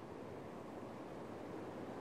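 Gentle sea surf: small waves breaking and washing up a sandy beach, a steady, even wash.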